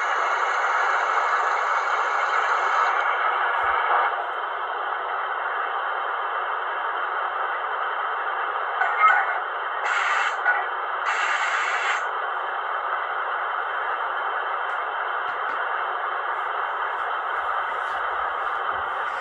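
Märklin model train running along the track: a steady whirring of the locomotive's motor and wheels on the rails, with a brief higher hiss joining twice about ten seconds in.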